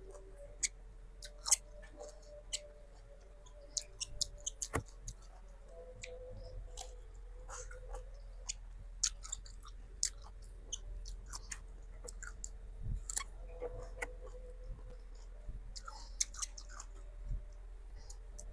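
Close-miked chewing of mango pieces dipped in spicy rujak sauce: irregular wet crunches and mouth clicks throughout.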